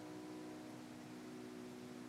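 Final chord of a brass-strung harpsichord, modelled on a 1661 Celini instrument, held and dying away, its notes ringing faintly as they fade out one by one.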